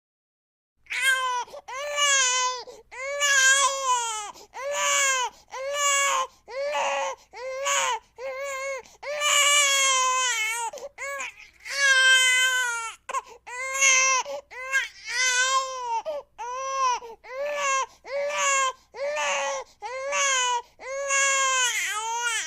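High-pitched crying like an infant's, starting about a second in. It comes as a string of short wails, roughly one a second, each rising and falling in pitch.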